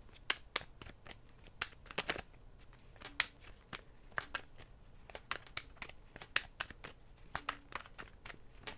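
A Pre-Raphaelite tarot deck being shuffled by hand, giving a string of light, irregular card clicks and slaps.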